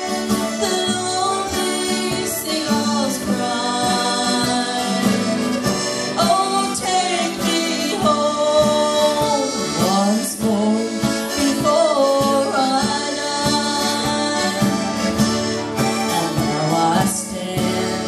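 Live folk band playing an instrumental passage: a twelve-string acoustic guitar strummed, a cajón keeping the beat, and a sustained lead melody with occasional slides.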